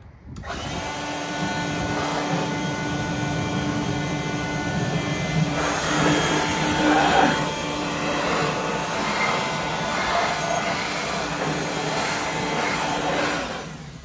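Air blower running steadily, blowing porting shavings out of a ported plastic Hemi intake manifold's throttle inlet and ports. It starts about half a second in, gets louder for a moment around the middle, and cuts off just before the end.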